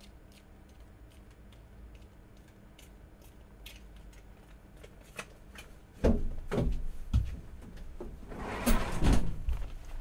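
Faint scattered clicks over a low hum, then about six seconds in three knocks, followed near the end by a louder rustling, scraping noise lasting about a second and a half.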